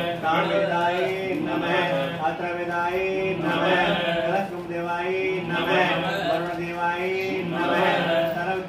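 A male priest chanting Sanskrit mantras in a continuous recitation.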